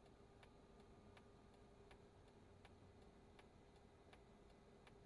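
Faint, even ticking about twice a second, typical of a car's turn-signal indicator clicking, over a low steady hum.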